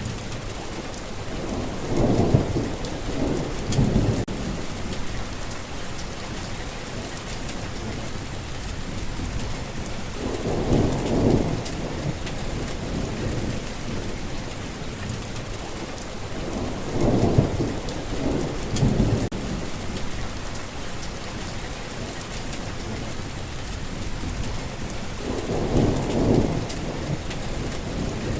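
Steady rain falling, with low rolls of thunder swelling and fading four times, about every eight seconds.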